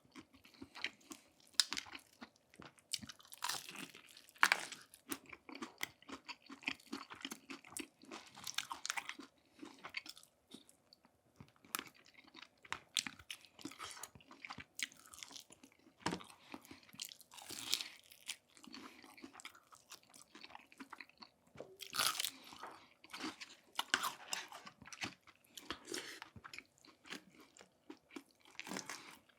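Close-miked chewing and biting of crisp fried food, with irregular crunches and crackles throughout.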